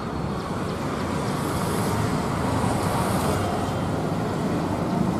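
Steady road traffic noise, swelling as a vehicle passes about two to three seconds in.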